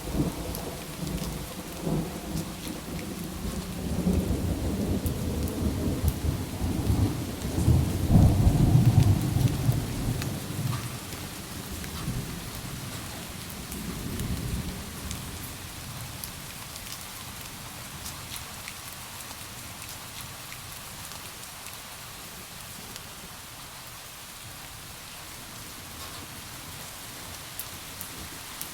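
Steady rainfall with a long rumble of thunder that builds, is loudest about a third of the way in, and dies away halfway through, leaving the rain on its own.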